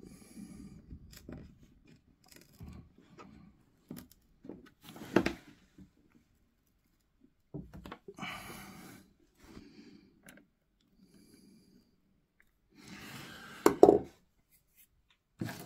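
Light handling noises of pinning a model railway turnout to a cork trackbed: small scrapes and rubs with a few sharp clicks, the loudest about five seconds in and near the end.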